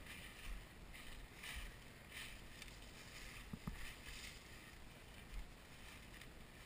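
Footsteps crunching through dry fallen leaves, faint, about two steps a second, with one brief knock a little past halfway.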